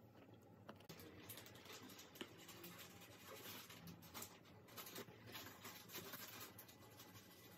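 Faint, irregular scratching and light crackling of a knife scoring through the top buttered filo layers of unbaked baklava, cutting only part way through.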